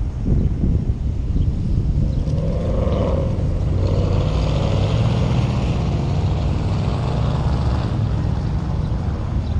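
Car engine running low and steady as the car slows and comes to a stop, then idling, with road and wind noise; a brief wavering tone about two to three seconds in.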